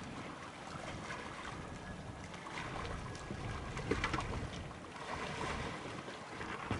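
Quiet waterside ambience: an even wash of wind on the microphone and water lapping.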